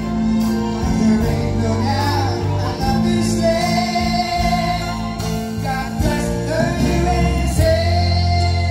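Live band and orchestra, strings and keyboards among them, playing a slow patriotic ballad with singing over a sustained bass, through an outdoor concert sound system.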